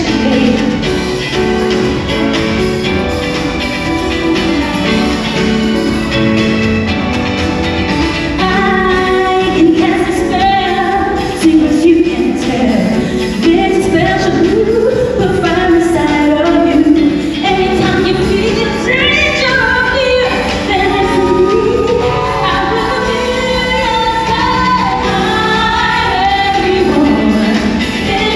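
A woman singing a pop song live into a handheld microphone over musical accompaniment, amplified through the stage speakers, with held, gliding notes.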